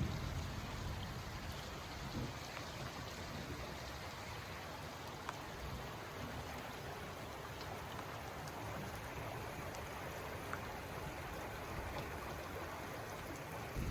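Steady rain falling, with scattered raindrop taps, over the rush of a river.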